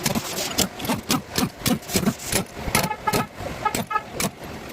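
Sharp knocks repeating about three times a second, with two short pitched toots a little after the middle.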